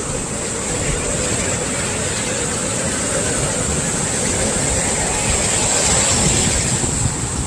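Heavy ocean swell breaking and washing up the beach, a continuous surf noise that builds to a peak about six seconds in and then eases.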